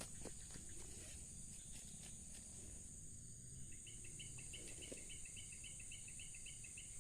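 Faint steady high-pitched drone of insects, with a rapid run of high chirps, about four a second, starting about halfway through and stopping near the end.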